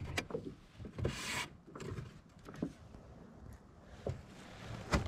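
Rubbing and scuffing as a bass and fishing gear are handled in a plastic kayak, with a short rasping hiss about a second in and a few light knocks in the second half.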